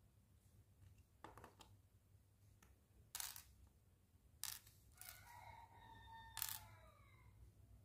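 Small nanoblock-style plastic mini bricks being pressed and snapped together by hand: a handful of short, sharp clicks spaced a second or so apart.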